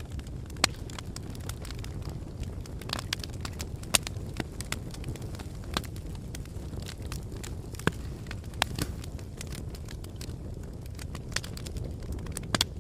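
Fire crackling: a steady low rumble of flames with irregular sharp pops and snaps, a few louder cracks standing out now and then.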